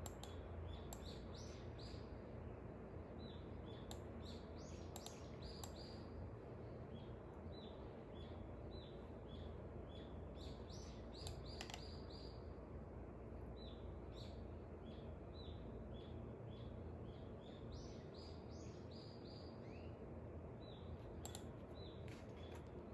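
Small birds chirping faintly in short, quick repeated calls throughout, over a steady low background rumble, with a few faint clicks.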